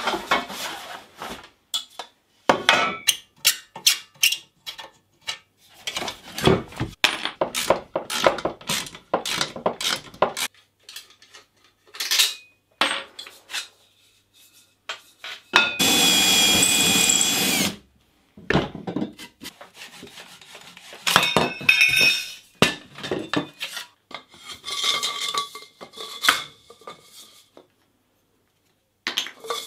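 Clinks and knocks of aluminium square tubing, brackets and bolts as a folding cot bed frame is dismantled on a workbench. About halfway through, a power tool runs steadily for about two seconds, the loudest sound here.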